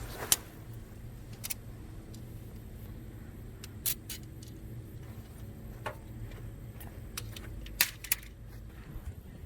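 Scattered sharp clicks and metallic clinks of camping shelter gear being handled, with a louder pair about eight seconds in, over a steady low hum.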